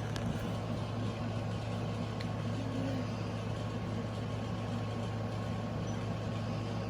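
A steady low hum, even and unbroken, over faint background noise.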